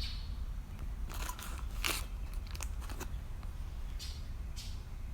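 Scattered crackles and rustles of handling noise, several short strokes a second or so apart, over a steady low hum.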